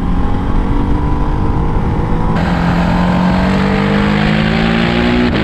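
Ducati DesertX's 937 cc V-twin engine pulling along the road, its note rising steadily as the bike gathers speed, with wind and tyre noise. About halfway through the hiss grows louder, and near the end the engine note drops suddenly as it changes up a gear.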